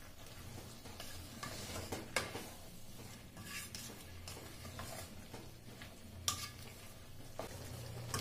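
Wooden spoon stirring beef liver strips with onion and pepper in a pot, over a steady faint sizzle of the meat simmering in its own juices. The spoon knocks sharply against the pot twice, about two seconds in and again near six seconds.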